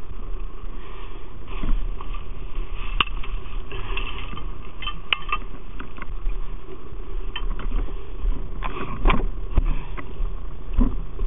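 Footsteps crunching over snow and ice, with the clink and knock of carried gear at irregular moments and a cluster of knocks about nine seconds in, over a steady low rumble.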